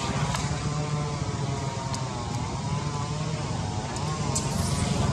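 Steady drone of a running engine with a constant low hum, over which a fainter whine wavers up and down in pitch, and a few faint high clicks.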